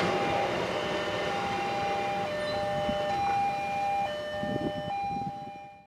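Railway level crossing warning alarm: a steady two-tone electronic signal held with brief breaks, fading out near the end.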